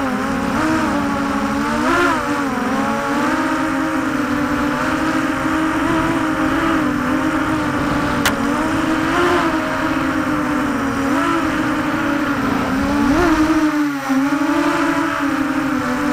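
Brushless motors and propellers of a ZMR 250 racing quadcopter whining continuously, the pitch rising and falling with the throttle, with a few sharp upward swells. A single sharp click about eight seconds in.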